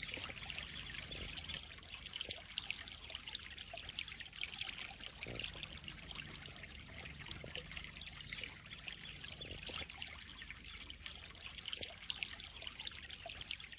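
Water trickling and splashing steadily in a koi pond: a dense run of small, bright splashes.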